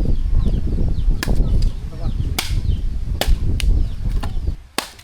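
Sticks of firewood being snapped: several sharp cracks over a low rumble on the microphone that cuts off near the end, with small birds chirping.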